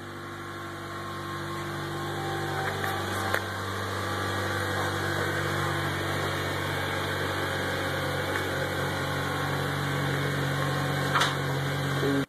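2010 Honda Civic Si's 2.0-litre K-series four-cylinder engine idling steadily, growing a little louder over the first few seconds, with a couple of faint clicks.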